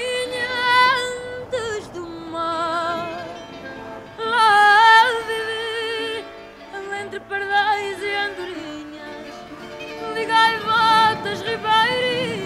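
Music: a woman singing long, wavering notes with strong vibrato.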